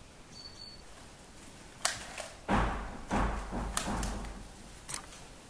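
People moving about a room: a few sharp clicks and, in the middle, a couple of seconds of thuds and rustling, like footsteps and plastic toy blasters being handled close by.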